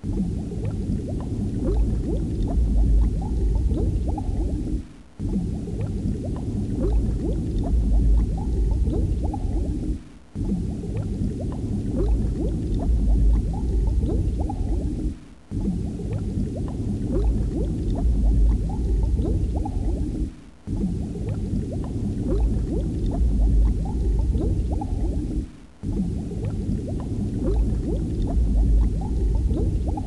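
Underwater bubbling and gurgling ambience, low in pitch with a crackling texture. It plays as a loop of about five seconds, dropping out for an instant each time it restarts.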